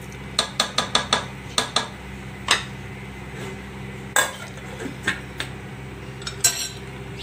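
Ladle knocking against the rim of a steel pot in a quick run of sharp clinks, then a steel lid clanking onto the pot about four seconds in, with a few more clinks near the end.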